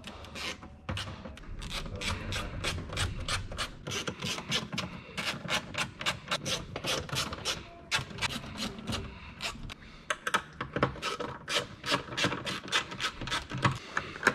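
Hand ratchet clicking in quick runs as small fasteners are backed out by hand, with brief pauses between runs.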